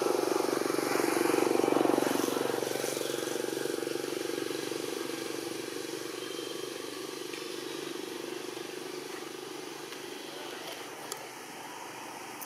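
A motor vehicle's engine droning, loudest about two seconds in and then slowly fading away.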